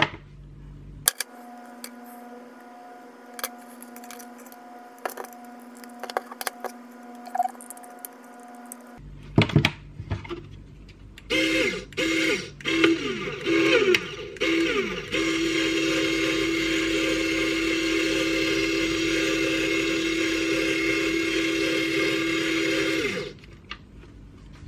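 Small RC scale winch's electric motor, driven by a replica Warn remote winch module. It makes several short jogs, each winding down in pitch as it stops, then runs for about eight seconds with a steady high whine, reeling in the line, before cutting off.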